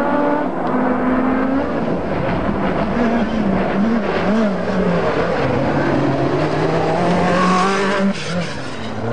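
Lancia Delta S4 Group B rally car engine revving hard on a gravel stage. Its pitch swings up and down with throttle lifts and gear changes over the hiss of tyres and flung gravel. A burst of hiss comes about eight seconds in, then the engine note drops.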